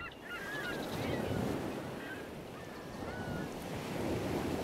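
Birds calling in short, gliding calls several times over a steady wash of surf and wind noise.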